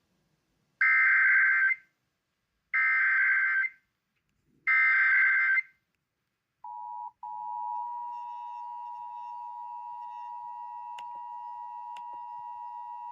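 Emergency Alert System test tones: three SAME header data bursts, each a harsh, about one-second digital screech, then the EAS two-tone attention signal (853 and 960 Hz) starts about six and a half seconds in, breaks off briefly, and holds steady.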